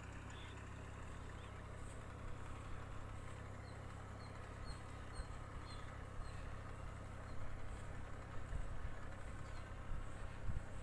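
Rice transplanter engine running steadily as a faint low hum, with a few louder low bumps in the second half and small high chirps above it.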